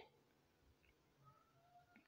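Near silence: only a very faint background tone.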